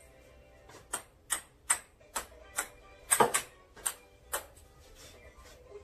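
A table tennis ball being bounced on a Xiom Ice Cream paddle: sharp ticks about two to three a second, with a louder clatter just after three seconds in, stopping a little after four seconds.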